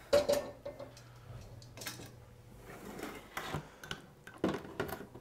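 A metal frying pan set down on a gas hob's cast grate with a clank and a short ring about a quarter second in, followed by scattered light clicks and taps of kitchen utensils against bowls and a cutting board, with a cluster of knocks near the end.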